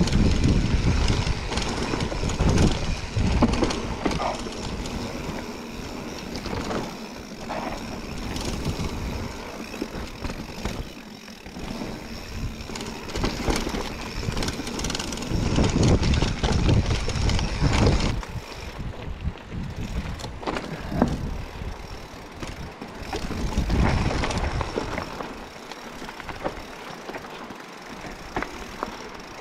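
Mountain bike ridden over rough trail: tyres on stony ground and the bike rattling, with many short knocks and a low rumble that swells and fades every few seconds.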